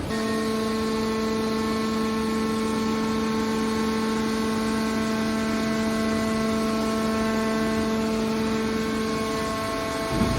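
Hydraulic metal baler's power unit whining steadily under load, a constant pitched hum over a wash of machine noise.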